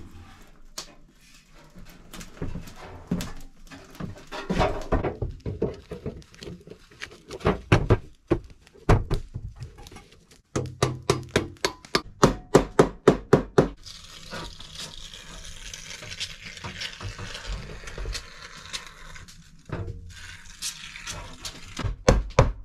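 Hammer driving nails through a sheet-metal plate into a log wall: scattered knocks and handling, then a run of quick strikes, about four a second, a little past the middle and again at the end, with rustling in between.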